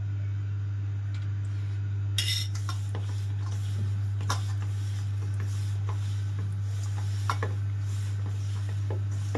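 Hands mixing crumbly dough in a stainless steel bowl, with a few sharp metal clinks against the bowl, over a steady low hum.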